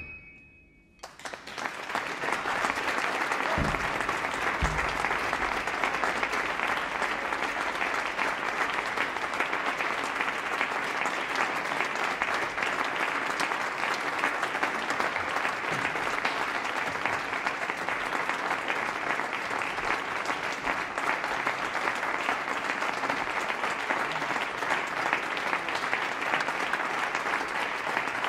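The music ends on a last sharp note, and after a moment of quiet a theatre audience breaks into applause about a second in, building quickly to steady clapping that keeps up. Two brief low thumps come through early in the applause.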